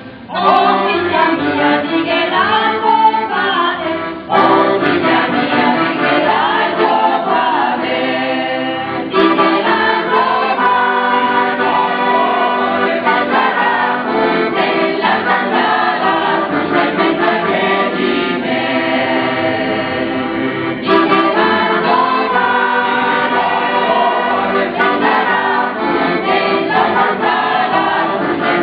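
Mixed choir of men's and women's voices singing together under a conductor, in phrases with short breaks between them.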